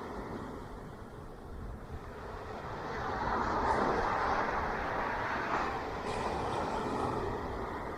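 Ocean waves breaking on a shore: a low ebb for the first couple of seconds, then surf swelling and breaking, with foamy washes about three and a half seconds and six seconds in.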